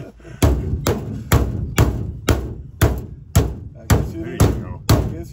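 Hammer striking the Airstream trailer's aluminum body about twice a second, a steady run of about ten sharp, ringing blows, flattening out bent metal at a damaged spot.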